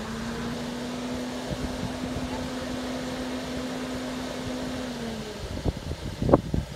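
Level-crossing barrier mechanism humming steadily as its motor drives the boom, dropping away about five seconds in when the boom stops. A few sharp knocks follow near the end.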